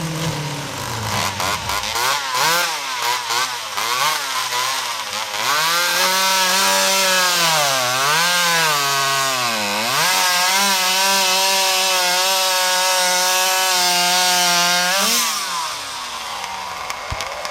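V8-engine-powered chainsaw revving unevenly, then running flat out in a steady high whine that dips in pitch twice before cutting off sharply near the end.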